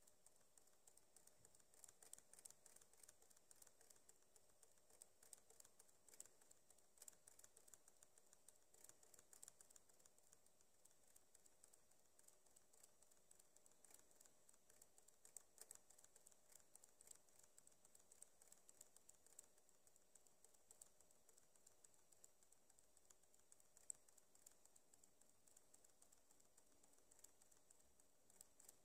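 Near silence with faint, rapid, irregular clicking from scrolling a web page on a computer.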